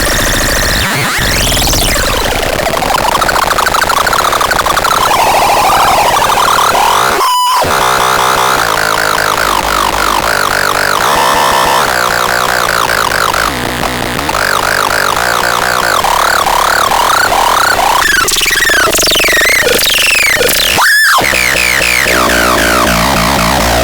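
Electronic noise synthesizer, the SADO ĎASO ST 1, putting out a loud, harsh, continuous texture of noise and fast repeating chirps and pitch sweeps, like a glitchy siren. Twice, about a third of the way in and again near the end, a sharp filter-like sweep cuts briefly through the sound.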